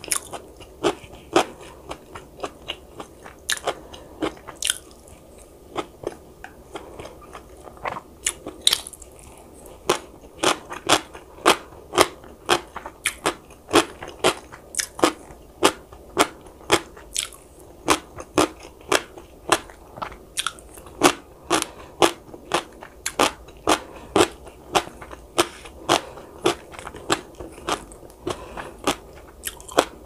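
Close-miked chewing of crunchy food: a steady run of crisp crunches, irregular at first and settling to about two a second from about ten seconds in.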